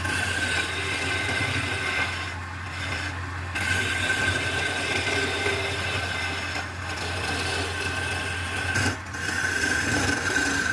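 Hand-held chisel scraping and cutting a spinning wooden spindle on a wood lathe: a steady rasping cut over a steady low hum, with the cut easing off briefly a few times.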